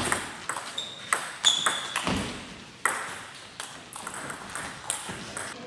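Table tennis rally: a celluloid/plastic ball clicking off bats and the table in an irregular run of sharp pocks, ringing in the hall, with two short high squeaks near the start.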